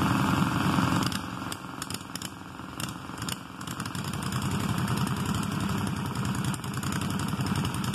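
Small lawn tractor engines running in the mud; the loudest drops off sharply about a second in, then picks back up about four seconds in and runs steadily.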